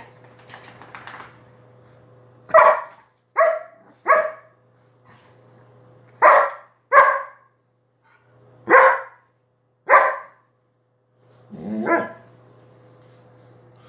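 A dog barking eight times in short single barks at uneven spacing; the last bark is longer and lower.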